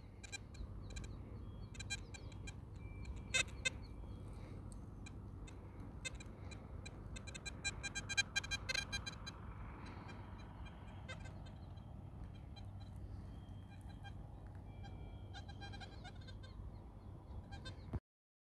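Wind rumbling on the microphone on an open hilltop, with many short high-pitched chirps and clicks scattered over it. The chirps bunch together a few seconds in and again around the middle.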